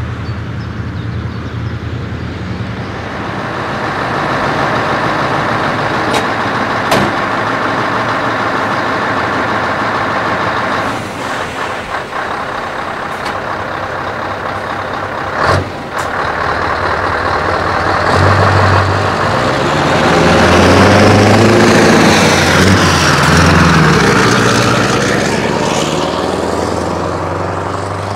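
Scania V8 diesel truck engine, heard first passing at a distance, then up close pulling away and gaining speed, its note rising and falling and loudest near the end.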